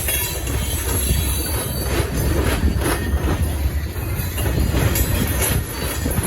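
Freight train rolling past: a steady low rumble of wheels on rail with irregular clicks at the rail joints, and faint wheel squeal.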